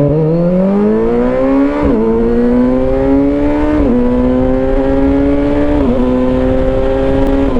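Kawasaki Versys 1000 SE's four-cylinder engine through an Arrow touring exhaust, accelerating through the gears. The pitch rises, then dips at each of three upshifts about two seconds apart.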